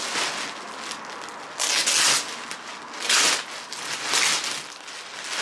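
A thin clear plastic packaging bag crinkling and rustling as it is pulled open and handled, in several bursts, the loudest about two and three seconds in.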